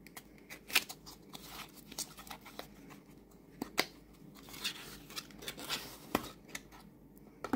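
Small cardboard tarot tuck box handled and opened by hand: scattered papery scrapes and light clicks as the flap is worked open and the booklet is slid out.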